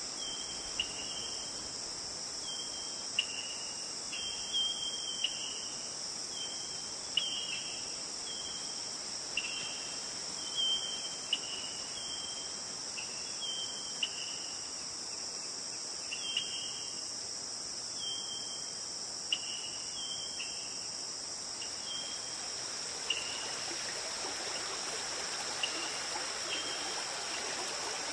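Steady high-pitched insect chorus, with short chirping calls repeating roughly once a second and thinning out near the end. In the last few seconds the sound of running water grows louder.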